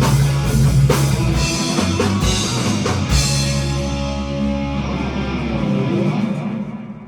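Live rock band with electric guitars, bass and drum kit finishing a song. Cymbal-heavy strikes give way about three seconds in to a held final chord that rings and fades away near the end.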